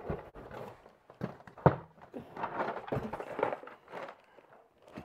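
Cardboard Lego set boxes being handled and set down: irregular knocks and rustling, with one sharp knock about a second and a half in.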